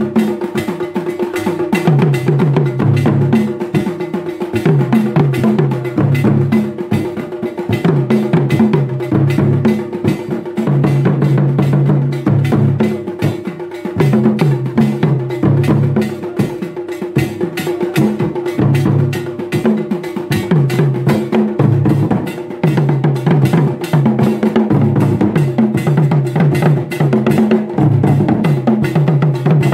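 Traditional Ghanaian drum ensemble playing a fast, continuous rhythm: a pair of pegged talking drums struck with curved sticks, with tall standing drums beneath and a sharp, rapid clicking part on top.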